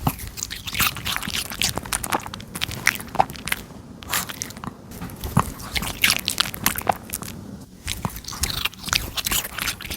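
Pomeranian chewing crisp Asian pear: a quick run of wet, crunchy bites and chews with a couple of short pauses.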